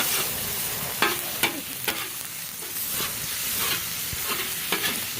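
Food sizzling on a steel griddle over a fire, a steady hiss broken by sharp clicks of a utensil scraping and tapping the plate every second or so.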